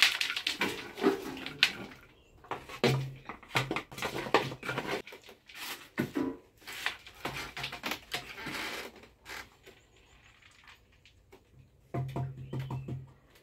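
Irregular clicks, knocks and scraping from a traditional milk gourd being worked and handled; the gourd's inside has just been prepared. A low drawn-out tone sounds twice, about three seconds in and near the end.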